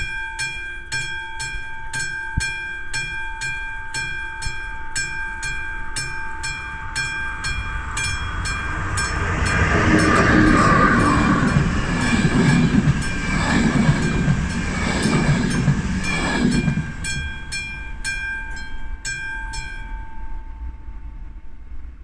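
Classic level-crossing bell ringing fast, about three strokes a second, while a passenger train passes, its wheels rumbling loudly on the rails from about 9 to 17 seconds in. The bell stops about 20 seconds in as the crossing warning switches off after the train has cleared.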